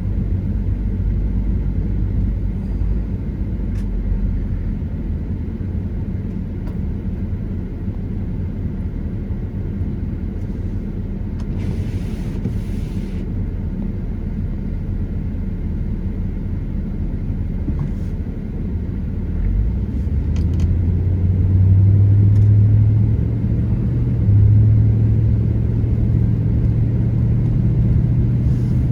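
Inside-the-car road noise while driving on a snowy road: a steady low rumble of tyres and engine. The engine hum grows louder about two-thirds of the way through, with a brief hiss about twelve seconds in.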